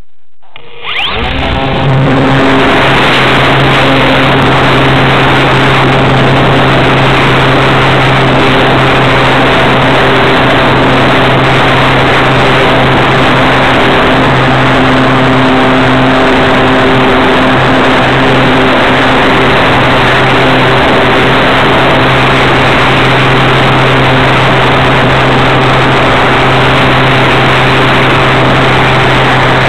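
Model motor glider's motor and propeller spinning up about a second in, then running loud and steady at a constant pitch, heard close up from the camera mounted under the wing.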